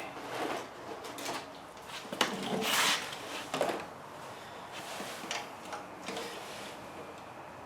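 Hand tools clinking and scraping against metal in short, irregular knocks, with a longer scrape about three seconds in, as the rototiller engine's mounting bolts are undone.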